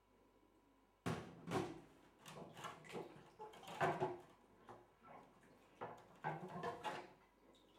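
Rummaging: objects handled and knocked about, likely in a kitchen cupboard or drawer, a run of irregular clatters and rustles that starts about a second in.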